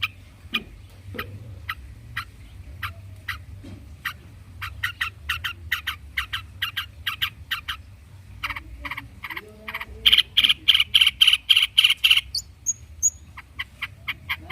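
Long-tailed shrike singing a harsh chatter of sharp, clicking notes. The notes come sparsely at first and speed up about four seconds in. A loud, very rapid run comes about ten seconds in, and a few high whistled notes follow near the end.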